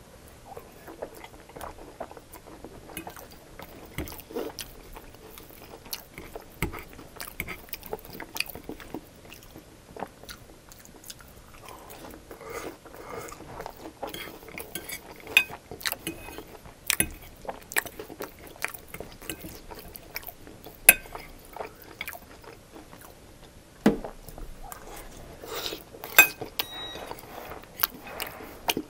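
Close-miked chewing of chili-topped fries, with wet mouth sounds. A metal fork clicks and scrapes against the plate now and then, with the sharpest clinks from about halfway in.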